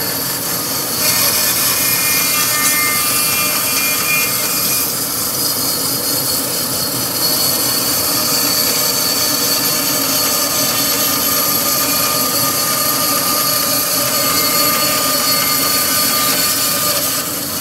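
20-inch Jet bandsaw with a carbide-tipped Laguna Resaw King blade cutting through a dogwood log. The cutting noise gets louder about a second in and holds steady, with a faint whine running through it, then eases off near the end.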